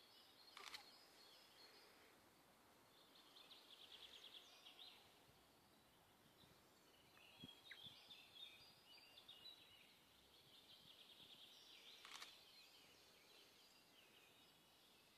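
Faint woodland birdsong: songbirds trilling and twittering on and off. There is a short, sharp crack under a second in and another near the end.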